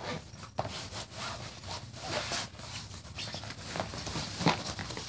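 Rustling and rubbing of a fabric backpack being handled and lifted, with a few soft knocks.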